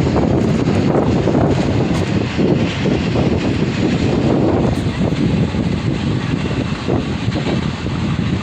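Union Pacific double-stack container freight train passing, a loud steady rumble of the diesel locomotives and the rolling cars.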